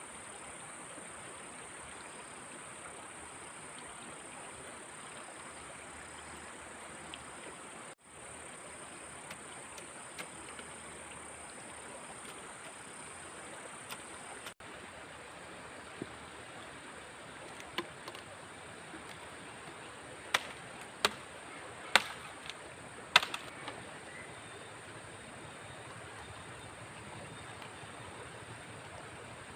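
Steady background hiss with a constant high-pitched drone, dropping out briefly twice. Past the middle comes a run of sharp clicks and taps, the loudest four close together in the later part of the run.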